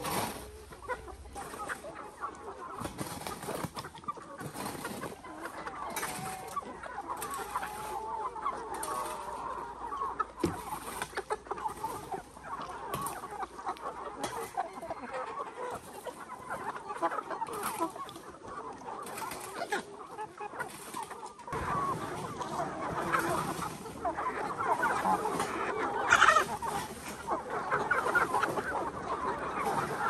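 A large flock of chickens clucking, with short scrapes of a rake on dry dirt about once a second. The clucking grows louder and fuller about two-thirds of the way through.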